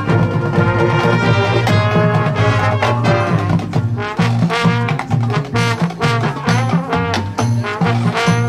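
Marching band playing: brass sounding over drums, with a steady beat.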